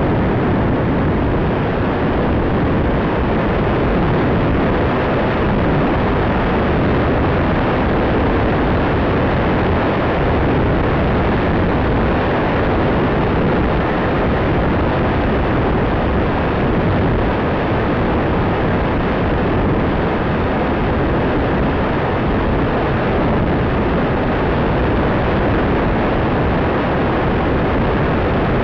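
Steady rushing wind noise on the onboard camera microphone of a Bixler FPV model plane in flight, even and unbroken.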